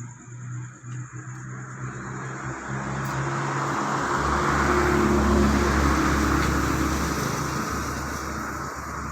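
A motor vehicle passing by, its engine and tyre noise growing over about five seconds, at its loudest a little past the middle, then fading away.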